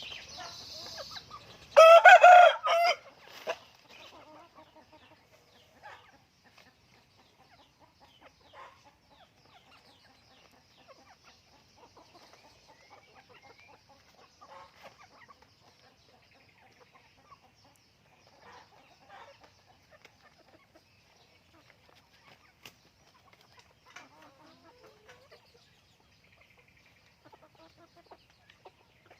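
A rooster crows once, loudly, about two seconds in, then chickens cluck softly on and off.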